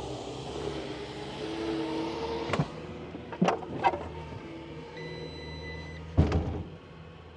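A steady low mechanical hum under a few sharp metallic clicks and knocks, then a one-second electronic beep about five seconds in. A heavy clunk follows straight after and is the loudest sound, and the level drops once it passes.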